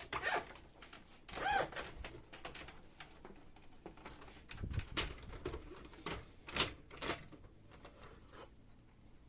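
Plastic parts of an HP LaserJet 1320 printer being handled and pulled free as it is taken apart: a run of clicks, knocks and short scrapes, with a dull thump about five seconds in, going quieter in the last couple of seconds.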